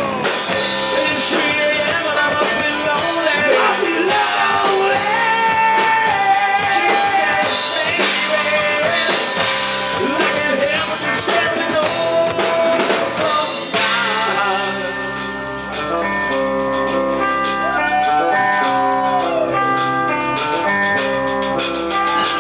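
Live rock/blues band playing: a male voice singing over electric bass, electric guitar and a drum kit. About two-thirds of the way through, the singing gives way to an instrumental passage of held notes.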